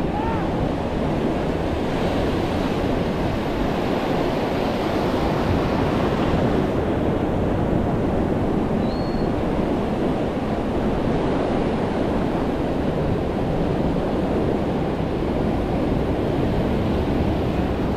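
Ocean surf washing steadily on the beach, with wind noise on the microphone.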